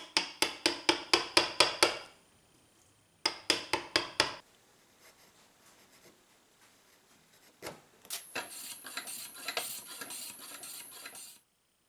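Woodworking hand tools on wood: two runs of quick, sharp taps, about four a second, then about three seconds of scraping on the wood near the end.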